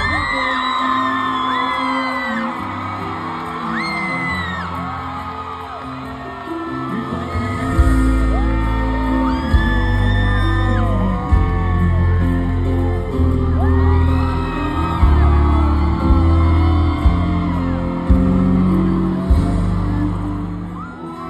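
Live pop-rock band music played loud through a concert sound system, with the crowd whooping, yelling and singing along. Heavy bass notes come in strongly about eight seconds in.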